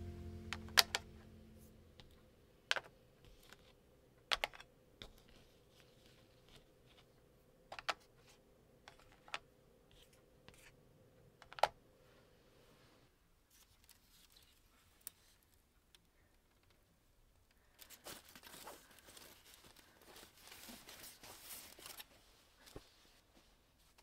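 Small objects handled on a tabletop: a scattering of sharp, separate clicks and taps, then a few seconds of rustling and crinkling near the end. Background music fades out at the start.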